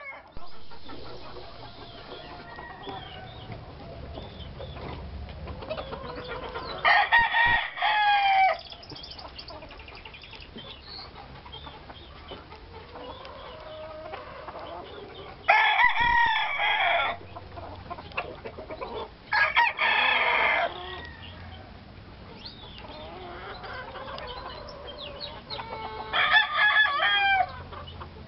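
A rooster crowing four times, each crow lasting about a second and a half, with soft clucking from Lacy Roundhead chickens between the crows.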